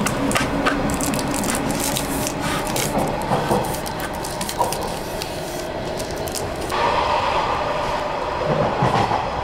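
Train running noise heard from inside the passenger cabin; about two-thirds of the way through, the hiss drops away and a steadier rumble takes over. Early on there are light clicks and rustles from a plastic drink cup and straw being handled close by.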